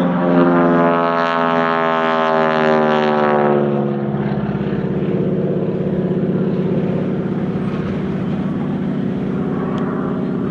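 Propeller aircraft engine flying past, its pitch falling over the first four seconds as it passes, then a steadier, lower drone as it moves away.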